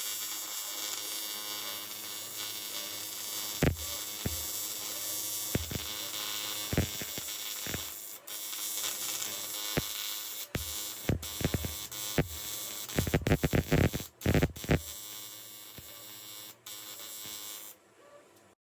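Electric welding arc buzzing steadily, broken by scattered sharp clicks and a quick run of clicks about two-thirds of the way in; it cuts off near the end.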